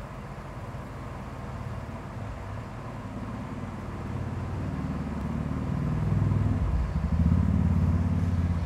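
A motor vehicle engine running nearby: a low, pulsing rumble that grows louder over several seconds, is loudest near the end, then drops off suddenly.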